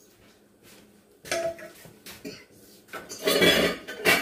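A utensil stirring and scraping in a skillet of baked beans and ground beef, with a clink of cookware about a second in and a louder scraping clatter of pan and lid near the end.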